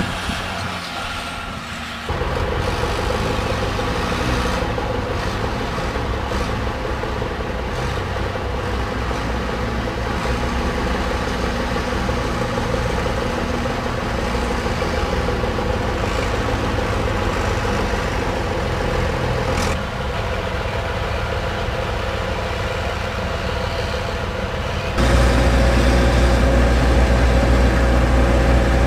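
Drilling rig's engines running steadily, a continuous deep mechanical drone with a constant pitch. It gets louder about two seconds in and again, heavier in the low end, near the end.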